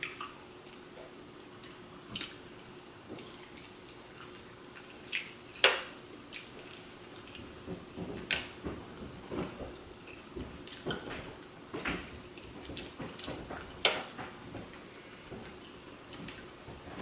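Close-miked eating of extra-crispy fried chicken wings: scattered sharp bites and mouth clicks, a few seconds apart at first and coming thicker through the middle.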